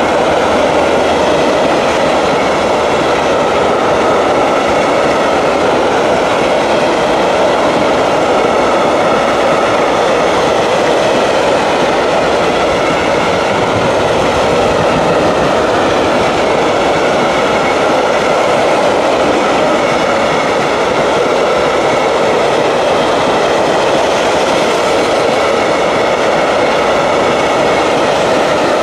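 Empty coal hopper wagons of a freight train rolling past at speed: a steady, loud rumble and rattle of steel wheels on the rails.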